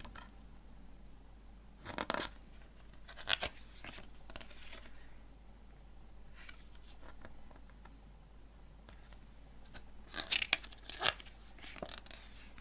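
Paper pages of a CD booklet turned by hand: short rustles and flicks of paper, several times, the busiest two about ten to eleven seconds in.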